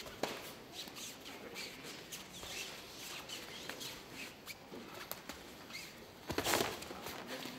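Fighters' bare feet squeaking and shuffling on the ring canvas as they circle, in short scattered high squeaks. About six and a half seconds in comes a short, louder burst of noise.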